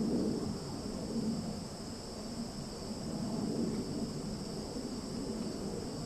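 Summer insect chorus of crickets and cicadas: a steady, unbroken high-pitched drone, over a low rumble that swells and fades.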